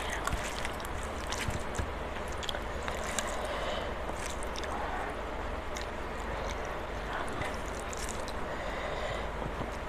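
Eating sounds: chewing with scattered small wet mouth clicks, and fingers mixing rice on a steel plate, over a steady background hiss and low hum.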